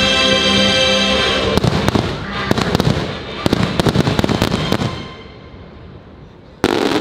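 Fireworks show: held notes of the show's music for the first second and a half, then a rapid string of firework bangs and crackles for about three seconds that dies away, with another loud bang near the end.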